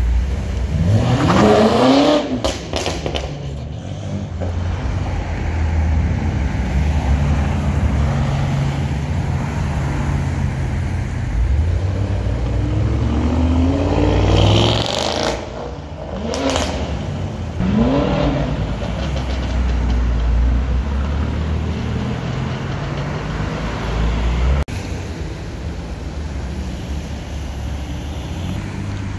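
Performance cars driving past on a street, their engines revving up in rising sweeps about a second in and again around the middle, over a steady low engine rumble between. The first is a BMW M5 pulling away, the second an Audi RS7.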